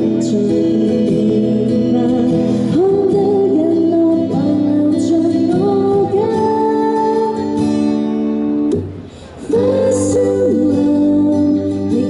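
A woman sings a Cantopop song live into a handheld microphone, with instrumental accompaniment. The sound drops briefly about nine seconds in.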